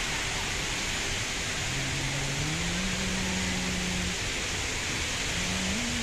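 Steady, even rushing of the Rain Vortex, the large indoor waterfall at Jewel Changi Airport, heard across the indoor forest.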